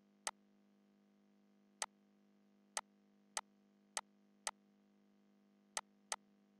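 Eight sharp computer mouse clicks, spaced irregularly from about a third of a second to a second and a half apart, over a faint steady hum.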